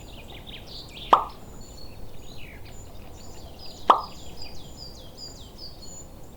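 Two sharp knocks about three seconds apart, each with a short tail that falls in pitch, over a constant scatter of small, high bird chirps.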